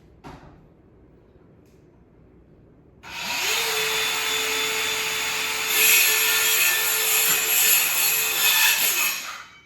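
Mini chainsaw starting about three seconds in, its motor rising to a steady whine, then cutting through a thin piece of wood, louder from about six seconds in, and stopping near the end.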